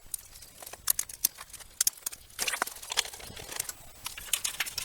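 Irregular clicks and crinkles of cables being handled and taped up inside a PC case, with a busy cluster of rustling a little past the middle.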